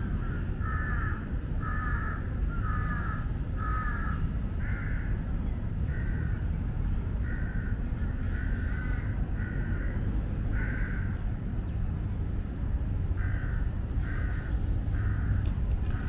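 Jungle crows (large-billed crows) cawing over and over in harsh, repeated calls, pausing briefly about two-thirds of the way through: the parent birds complaining in alarm at a predator eating their fledgling. A steady low rumble runs underneath.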